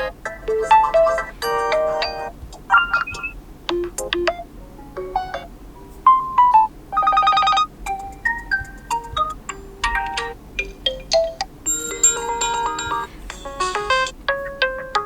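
OPPO Reno7 5G alarm tones playing one after another. Each is a short electronic melody of clear notes that stops after a second or two and gives way to the next. About seven seconds in comes a rapid, buzzing pulsed tone.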